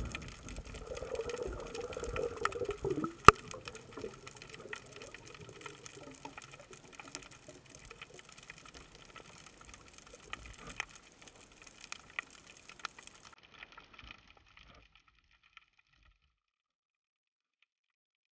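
Underwater ambience: a faint hiss with scattered sharp clicks and one louder knock about three seconds in, fading out to silence near the end.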